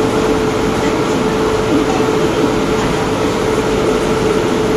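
WAP-7 electric locomotive standing at the platform, humming steadily with a constant mid-pitched whine.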